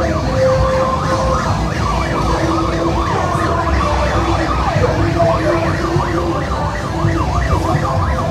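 Several motorcade vehicle sirens yelping at once: many overlapping fast rising-and-falling wails, with steady lower tones and engine rumble underneath.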